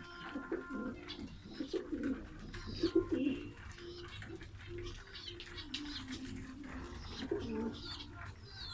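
Pigeons cooing, a string of low repeated coos that is loudest about three seconds in, with faint higher chirps over the top.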